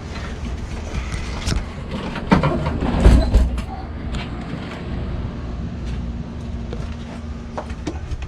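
Scattered knocks and clatter, louder for about a second a little over two seconds in, over a steady low hum.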